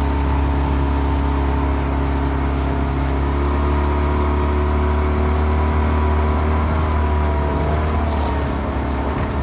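Outboard motor driving an inflatable boat, running at a steady pitch, then easing off slightly in pitch and level near the end.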